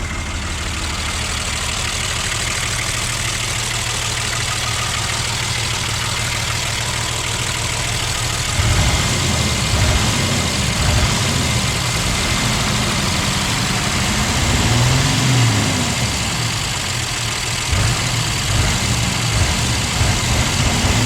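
Toyota Land Cruiser HJ75's 2H straight-six diesel engine running, steady at first. About eight seconds in, the revs begin rising and falling again and again.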